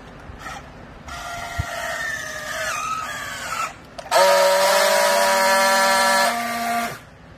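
Battery-powered handheld strapping tool on a plastic bale strap. Its motor first whirs as it tensions the strap, the pitch sliding down as the strap tightens. Then it gives a louder, steady whine as it friction-welds the seal, and this cuts off abruptly near the end.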